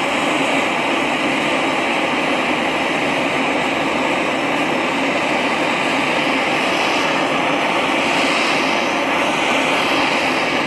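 Handheld gas torch burning with a steady, even hiss, its flame played into a ceramic melting dish to preheat it up to temperature before the borax flux goes in.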